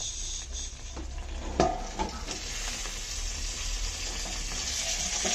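Banana-leaf-wrapped fish parcel sizzling in a hot frying pan, the sizzle growing stronger toward the end. A single sharp knock about a second and a half in.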